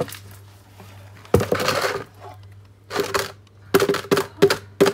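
Sugar being tipped into a mixing bowl, then a utensil knocking against the bowl about three times a second, each knock with a short ringing note.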